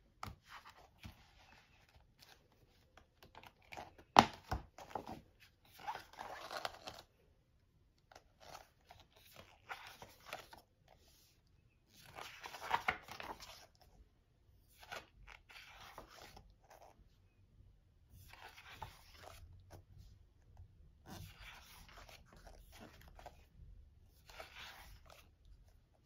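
Glossy pages of a K-pop album's photo book being turned by hand: several separate papery rustles and slides, each about a second long, with a sharp tap about four seconds in, the loudest sound.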